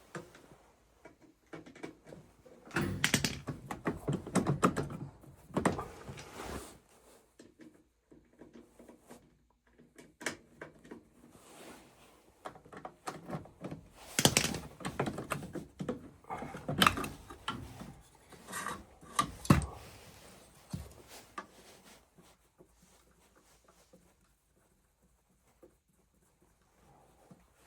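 Irregular knocks, clinks and scrapes of tools and parts being handled during work on an oil boiler, in clusters, with a quiet stretch near the end.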